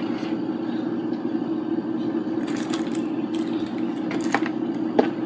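Plastic CD cases and packaging being handled: a few sharp clicks and rustles, about two and a half seconds in and again near the end, over a steady low background hum.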